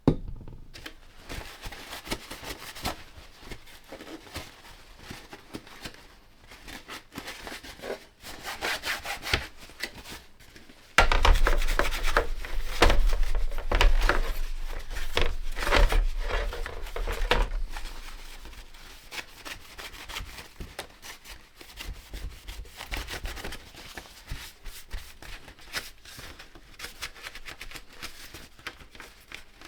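Rapid back-and-forth rubbing and scrubbing strokes as a vintage Armstrong 626 radio receiver is cleaned of leaked capacitor fluid and grime, with a louder, heavier stretch in the middle.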